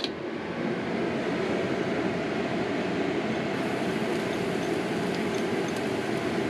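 Kitchen exhaust fan switched on, spinning up over the first second and then running with a steady whooshing whir.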